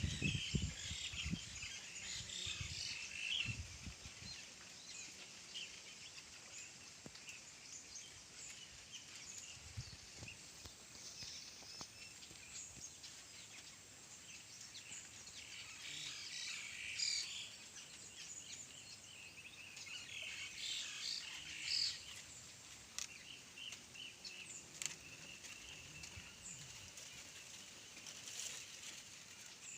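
Faint bird chirps and twitters on and off, with a few low thumps in the first few seconds and another about ten seconds in.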